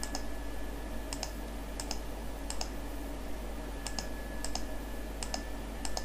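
Computer mouse button clicking as checkboxes are ticked, the clicks coming in close pairs about eight times, one pair every two-thirds of a second or so. A faint steady electrical hum runs underneath.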